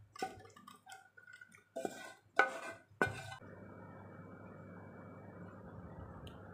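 A spatula scrapes and knocks thick beef in black sauce out of a pot into a serving dish: a run of scrapes and clinks, loudest about two and a half seconds in. After about three and a half seconds a steady low hiss takes over.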